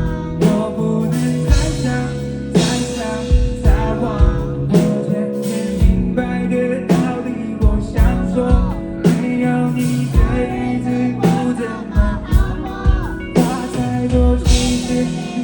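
A live band playing a song, with a lead vocal sung over a steady drum beat and guitar.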